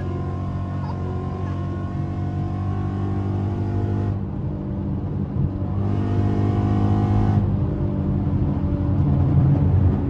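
Ford Mustang's 5.0 V8 heard from inside the cabin, pulling steadily at speed, its drone building slowly.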